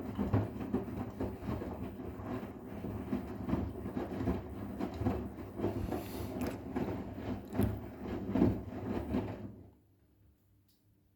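Arçelik 10121 front-loading washing machine turning its drum with a wet sofa cover inside, a busy churning with uneven thumps as the load drops and sloshes. It stops abruptly near the end, leaving a faint steady hum.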